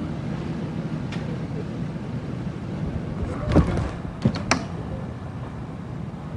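Steady low outdoor rumble, like street background noise, broken by a quick cluster of sharp knocks about three and a half seconds in and two more knocks about a second later.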